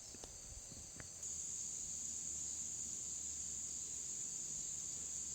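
Insect chorus outdoors: a steady, high, even chirring that gets a little louder about a second in, with a few faint clicks early on.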